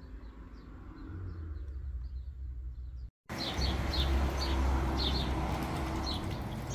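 Birds chirping in short, repeated calls over a steady low rumble. The sound drops out briefly about three seconds in and comes back louder.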